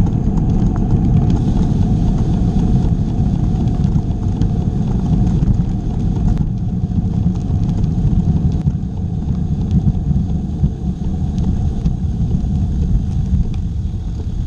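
Wind rushing over a bike-mounted action camera's microphone together with tyre noise from a bicycle rolling along asphalt: a loud, steady low rumble with a few faint clicks.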